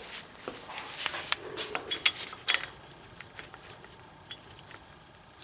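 Metal hand tools clinking and clanking as they are handled, with a few sharp metallic clicks that ring briefly, the loudest about two and a half seconds in.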